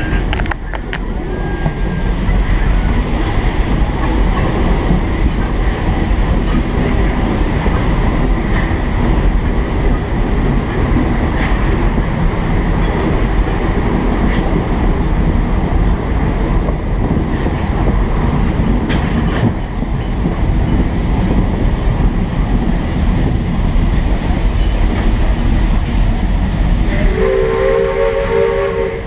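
1915 Baldwin steam locomotive under way, a steady loud rumble and clatter of the running train. About two seconds before the end its steam whistle starts to blow, several tones sounding together.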